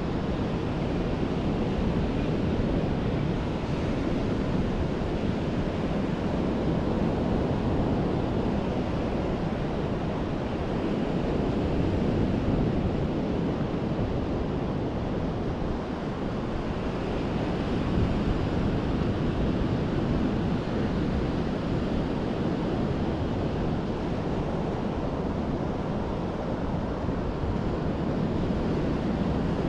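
Ocean surf washing onto a beach: a steady rush of waves that swells and eases gently, with some wind on the microphone.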